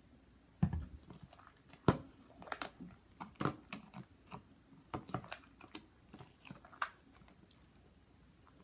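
Sticky, half-formed slime of white PVA glue and detergent being worked, giving irregular wet clicks and pops that stop about seven seconds in; the mixture is still tacky and needs more detergent.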